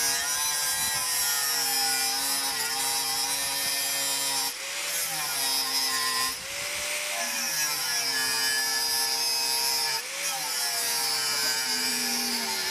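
Small angle grinder with a thin cut-off disc cutting slots into the edge of a steel bar: a steady motor whine under a hissing grind. Three times the disc briefly eases off, the motor's pitch rising and the grinding hiss dropping, before it bites in again.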